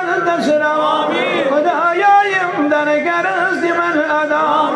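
Men's voices chanting an Islamic devotional recitation (salaam and dua) melodically and without instruments.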